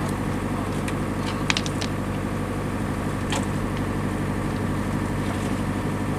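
Heavy diesel engine running steadily at a constant speed, with a few short clicks about one and a half and three seconds in.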